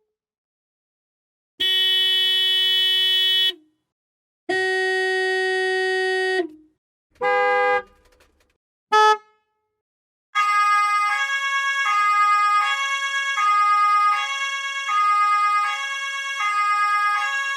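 Car horn blasts: two long steady blasts of about two seconds each, then a shorter honk and a brief toot, with silence between. About ten seconds in, a two-tone hi-lo siren starts, switching pitch about every three-quarters of a second.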